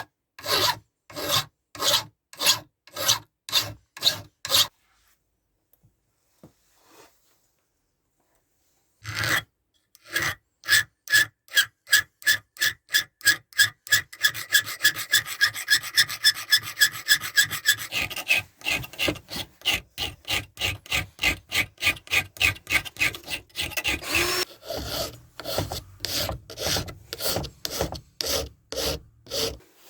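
A hand rasp or file working wood in regular back-and-forth strokes, about two a second at first. After a pause of a few seconds the strokes resume faster, about three a second.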